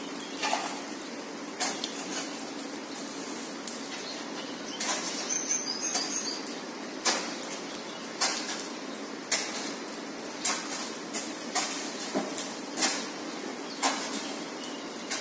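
House sparrows chirping, short sharp chirps about once a second, over a steady low hum.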